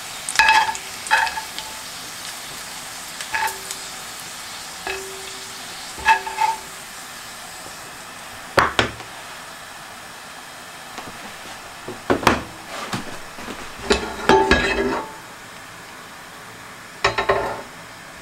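Crisp pancetta being picked out of a cast-iron skillet: a metal utensil clinks and scrapes against the pan about a dozen times, some strikes ringing briefly, over a steady sizzle of the rendered fat.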